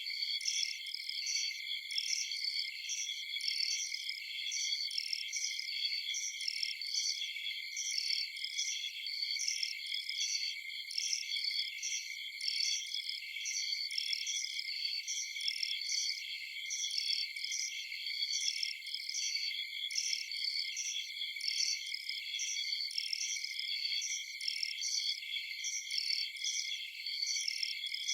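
Chorus of crickets and other night insects: a steady shrill trill with short high chirps repeating evenly over it.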